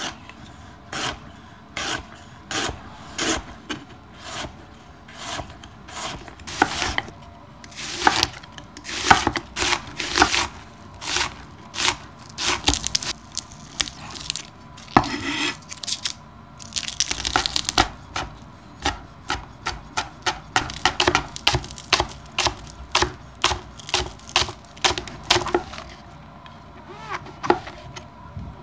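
Chef's knife cutting ginger and mushrooms on a wooden cutting board: a long series of sharp knocks of the blade on the board, mostly about two a second, quickening into faster runs in places. There is a short rasping noise about seventeen seconds in.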